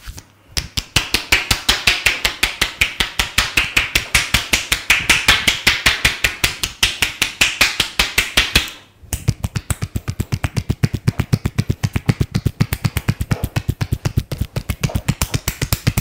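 Rapid rhythmic percussive massage: hands striking the head or shoulders many times a second with sharp slapping claps. After a short pause near the middle a faster run of strikes follows, duller and thuddier than the first.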